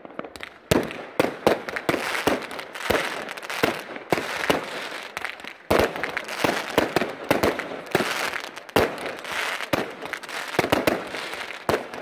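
Aerial fireworks display: a dense, irregular run of sharp bangs from bursting shells, several a second, over a continuous crackle and hiss.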